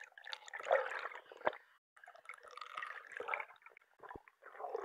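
Underwater bubbling and gurgling of water around the camera housing as a freediver swims up toward the surface, in uneven spurts with a few sharp clicks.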